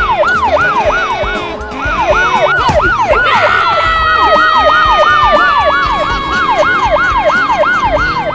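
Police siren in a fast yelp, its pitch sweeping up and down about three times a second. A second held tone joins about halfway through and slowly falls in pitch.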